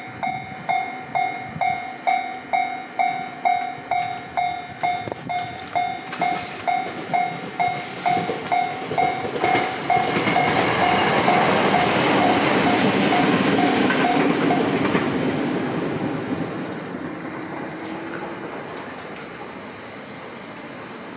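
Japanese level-crossing electronic warning bell clanging about twice a second, with a train passing over the crossing. The train's rumble and wheel clatter build about ten seconds in, drown the bell, and fade away after about sixteen seconds.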